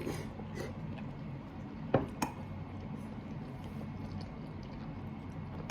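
Tableware clinking during a meal: two quick sharp clicks about two seconds in, like a utensil knocking a dish, over a low steady room hum.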